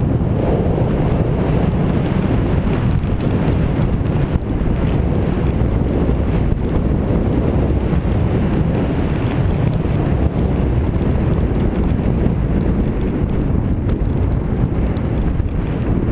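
Steady wind buffeting the camera's microphone from the rider's speed down a snowy ski slope, a loud, unbroken low rushing.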